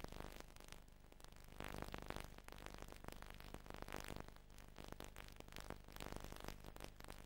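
Near silence: a faint steady hiss with a low hum and scattered crackle, no clear sound source.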